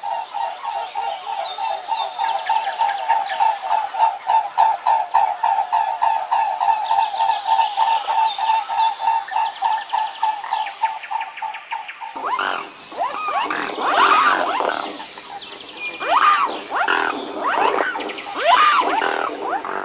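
A rapid, steady trill of pulses, about four a second, runs for the first twelve seconds. It stops abruptly and gives way to swans calling: a flock's overlapping honking calls that bend up and down in pitch.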